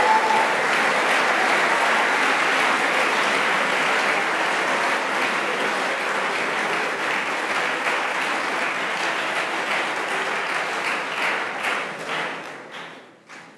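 Audience applauding steadily, dying away near the end to a few scattered claps.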